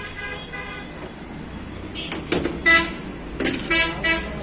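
Vehicle horns tooting several times in short, steady-pitched honks, the loudest about halfway through and again near the end, over a steady low traffic hum.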